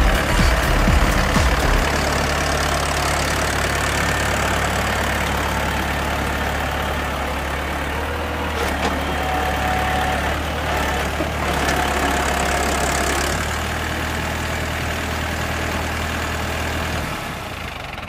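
Small crawler tractor's engine running with a steady low note, uneven and loudest for the first couple of seconds. The note drops shortly before the end.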